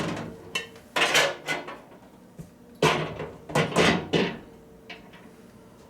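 Five or six clunks and clatters, the sharpest at the start and about three seconds in, as parts of a GE over-the-range microwave oven are handled: the turntable ring and tray set inside and the door shut.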